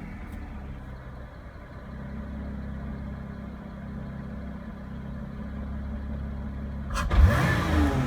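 Lotus Evora 400's supercharged 3.5-litre V6 idling steadily. About seven seconds in, a hard stab of the throttle brings a sudden cough before the revs climb sharply: the hesitation behind the car's jerky acceleration.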